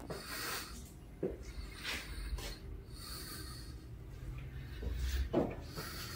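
Irregular footsteps and scuffs on a concrete floor, with rubbing and knocking from a handheld camera, and the filmer breathing audibly about every two to three seconds.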